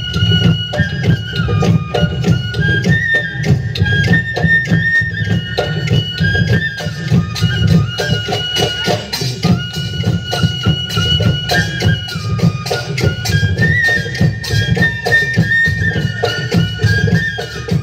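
Live Bihu folk music: dhol drums beaten in a fast, busy rhythm under a high wind instrument that holds long notes and steps up and down between a few pitches.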